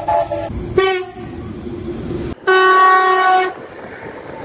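Russian locomotive horns over the rumble of passing trains: a few short horn toots and a held tone, then an abrupt switch to a louder horn blast lasting about a second, followed by train rumble.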